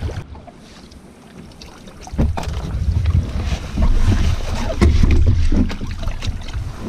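Sea kayak nosing into a narrow rocky gully: water slopping and splashing around the hull and rocks, with wind buffeting the camera microphone and scattered knocks. Quieter for the first two seconds, then louder.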